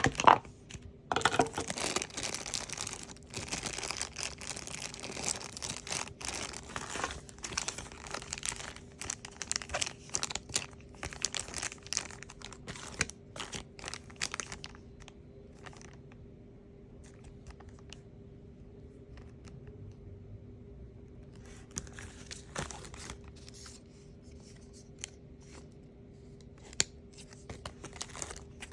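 Plastic toy packaging being torn open and crinkled by hand, in dense bursts of crackling for the first half, then a pause, a shorter burst, and scattered clicks and rustles near the end.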